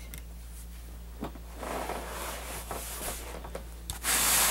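Soft irregular rustling of objects being handled, then loud rubbing handling noise on the microphone about four seconds in as the camera is moved. A low steady hum runs underneath.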